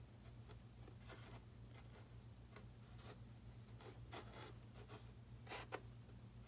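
Faint rustling and small ticks of hands handling thin wires and electrical tape, with the loudest rustle shortly before the end, over a steady low hum.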